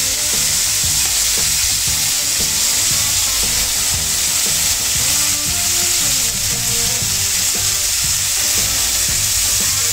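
Beef strip-loin steak (lomo liso) sizzling steadily on a hot griddle, frying in its own juices, with background music underneath.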